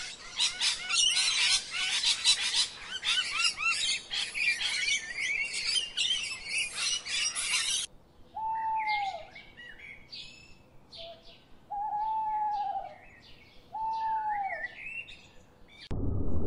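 A dense, fast chatter of many bird chirps and calls for about eight seconds. Then an owl hoots three times, each hoot a drawn-out call that rises and falls, over scattered high chirps of small birds. Near the end a low gurgling water rush takes over.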